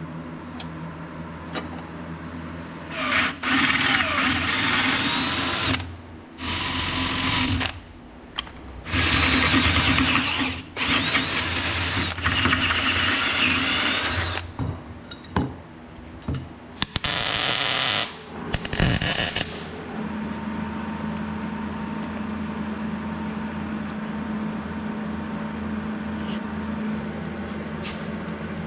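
A handheld power tool run in about six short bursts of a few seconds each, its whine rising in pitch as it spins up, followed by a steady low hum.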